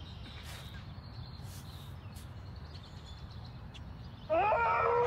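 Steady low background noise, then about four seconds in a loud, pitched cry that rises at the start, holds, and is cut off abruptly about a second later.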